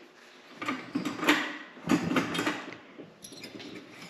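A cluster of short knocks and rubbing handling sounds, then a few fainter ticks.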